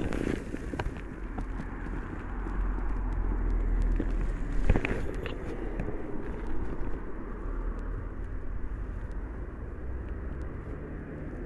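Outdoor ambience: a steady low rumble with a few sharp clicks, loudest about five seconds in.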